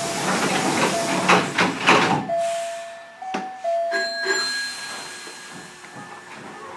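Train door chime repeating a two-note ding-dong for about three and a half seconds, with bursts of hissing air from the doors in the first two seconds. Brief steady high tones sound around four seconds in.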